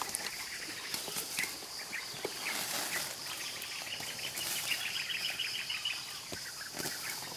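A steady high-pitched insect drone, with a rapid run of chirps for a few seconds in the middle. Light rustling of leaves and undergrowth as plants are pulled by hand.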